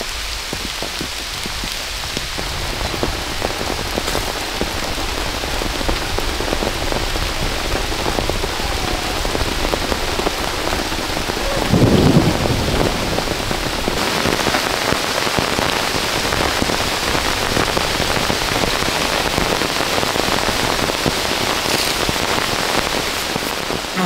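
Steady rainstorm: rain pouring down in a constant hiss, with one short, loud low thump about halfway through.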